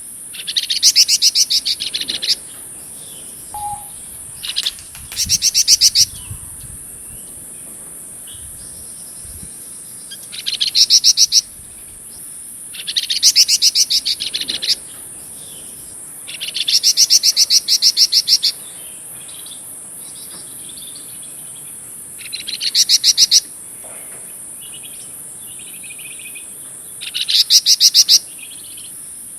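A flamboyan songbird singing in bursts of very fast, rattling trilled notes, each burst a second or two long and repeated every few seconds, with softer warbling between bursts. A steady high insect drone runs underneath.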